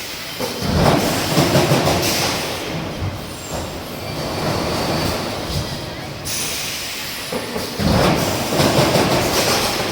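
Industrial machinery running with a clattering, grinding rumble and thin metallic squeals. It swells louder about a second in and again near the end.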